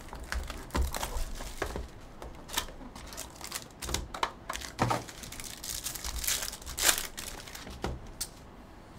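Plastic wrapping crinkling and tearing in irregular crackles as a trading-card box and its pack are opened by hand.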